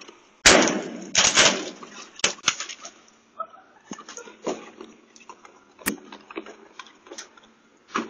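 Thrown eggs smacking against the house and driveway: a loud splat about half a second in, another about a second later, then a few sharper cracks, the strongest near six seconds.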